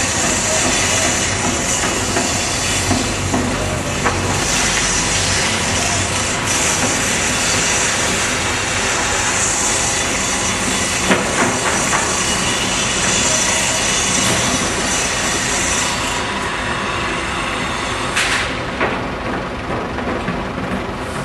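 Site table saw cutting wood: a loud, steady blade-through-timber noise with a strong high hiss. The high hiss drops away about sixteen seconds in, followed by a sharp knock and a few scattered knocks as the boards are handled.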